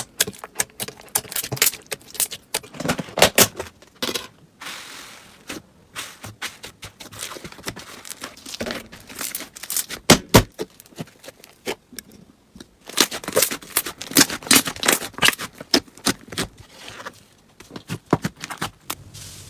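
Slime being handled, making irregular crackling and popping clicks, with a softer hissing stretch around five seconds in.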